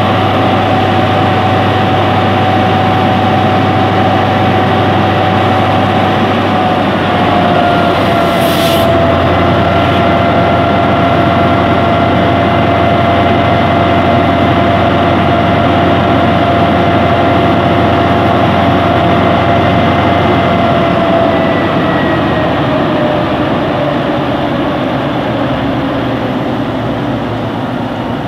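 Alsthom diesel-electric locomotive with an MTU engine running loud with a steady hum and whine. The whine steps down in pitch about seven seconds in, with a short hiss a second later, and from about three-quarters of the way through the engine sound eases off and the whine glides lower.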